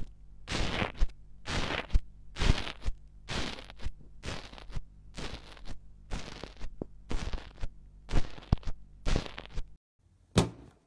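Foamy rainbow slime in a steel pot pressed again and again with a blue stick, about ten squishy crackling presses at roughly one a second. Near the end, a single sharp snap as scissors cut into a balloon.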